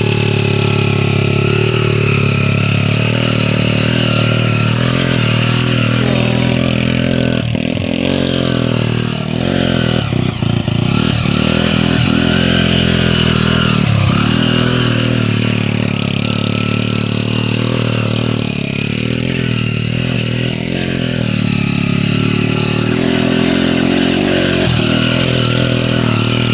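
Motorcycle engine running hard and revving under load on an off-road climb. Its pitch sags briefly a few times.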